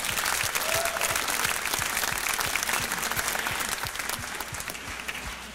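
A church congregation applauding, the clapping thinning out and fading away near the end.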